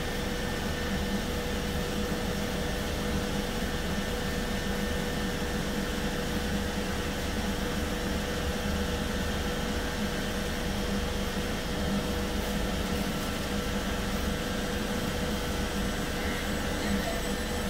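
c2c Class 357 Electrostar electric train standing at the platform, its auxiliary equipment and air conditioning humming steadily with a constant tone.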